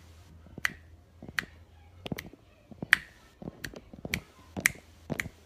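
A run of sharp, irregular clicks, about two a second.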